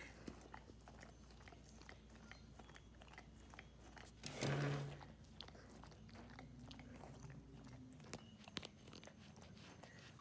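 Dog licking and chewing food: a run of small, quiet clicks from its mouth and tongue, with one louder, longer noise about four and a half seconds in.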